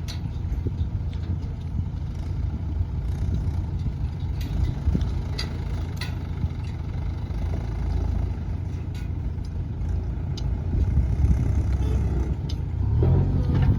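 A backhoe loader's diesel engine running with a low, steady rumble, with occasional sharp metallic clanks. It gets a little louder toward the end.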